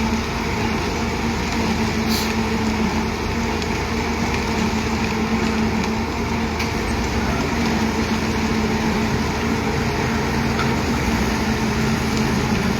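Heavy construction-machinery engine running steadily with a constant hum. A second, lower engine tone joins about ten seconds in.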